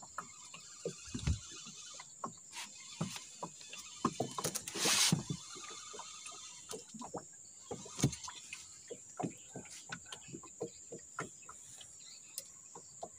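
A steady high-pitched insect drone, cicadas or crickets, from the riverbank, with scattered light knocks and clicks of fishing rods and tackle being handled on a small boat. A brief rush of noise about five seconds in.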